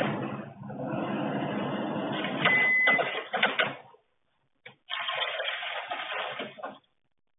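Rough outdoor noise through a security camera's low-quality microphone, with scattered clicks and a short high beep about two and a half seconds in. The sound cuts out to silence twice.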